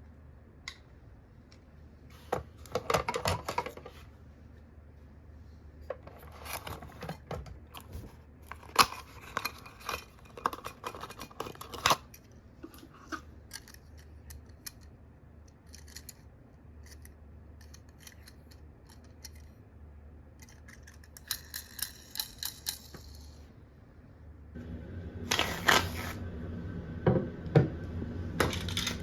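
Die-cast toy minicars and their plastic cases being handled: scattered sharp clicks, taps and small clattering rattles, busier in a few clusters and heaviest near the end.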